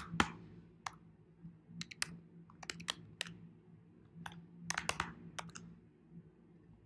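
Typing on a computer keyboard: sharp keystroke clicks in short, irregular bursts, falling quiet for about a second near the end. A faint steady low hum runs underneath.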